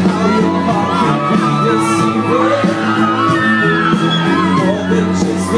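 Live pop music played loud through a PA, with singing and crowd shouting and whooping.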